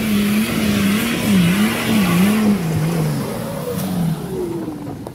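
Nissan Patrol 4x4's engine revving up and down as it climbs a steep, loose rocky trail, with the tyres spinning and scrabbling in gravel and dust. The engine note rises and dips several times, then drops lower and fades after about three seconds.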